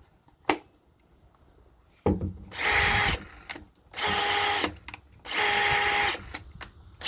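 DeWalt 20V brushless hammer drill (US DCD796) running on a UK 18V XR battery, triggered in about four short bursts of under a second each with a steady motor whine. A click comes about half a second in. The drill runs normally, showing the 18V battery powers the 20V tool.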